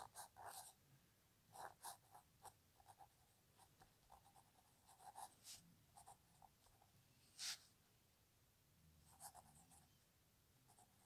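Pen tip scratching across paper in short, irregular strokes as words are handwritten in cursive. Faint, with one louder stroke about seven and a half seconds in.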